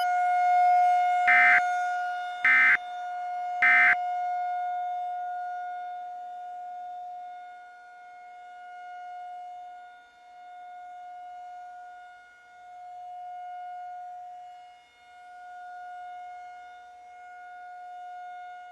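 Three short bursts of data tones in the first four seconds, about a second apart: the Emergency Alert System end-of-message code. Under and after them a civil defense siren holds a single steady pitch, its loudness swelling and fading every couple of seconds.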